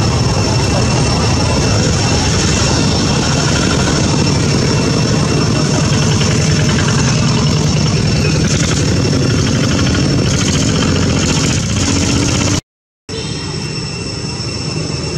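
Loud, steady outdoor background noise: a low engine-like rumble under a steady high-pitched whine. It cuts out abruptly for about half a second near the end, then carries on.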